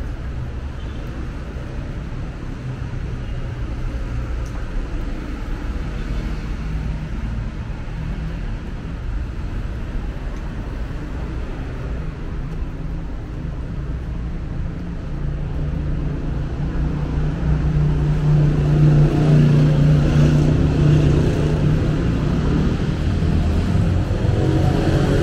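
Street traffic: car engines and tyre noise run steadily, with one vehicle's engine growing louder about two-thirds of the way through as it comes close.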